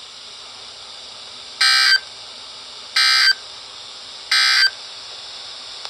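Emergency Alert System end-of-message data bursts: three short bursts of raspy digital tones, about 1.3 seconds apart, marking the end of the severe thunderstorm warning broadcast. They play over a faint steady radio hiss.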